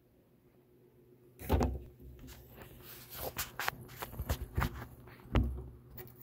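Handling noises at a table: a thump, then a run of knocks and rustles, then another thump, as a person shifts in her seat and moves a sheet of paper on the tabletop.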